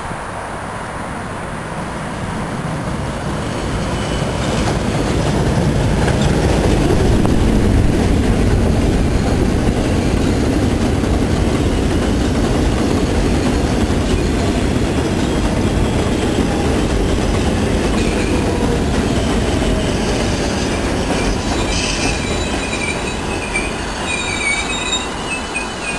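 A New York City subway train of R142A cars runs along the elevated steel track, its rumble and wheel clatter building to a peak about a third of the way in. A high, wavering wheel squeal comes in near the end.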